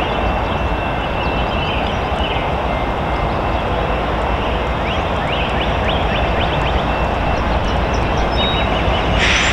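Diesel locomotive of an approaching freight train rumbling steadily, with short high chirps above it. A brief burst of hiss comes near the end.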